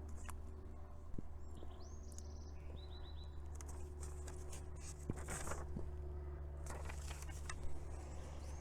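Quiet room tone with a steady low hum, a few soft clicks and rustles, and faint high chirps about two to three seconds in.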